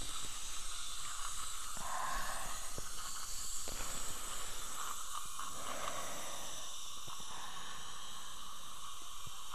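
Dental suction hissing steadily, with a few faint clicks.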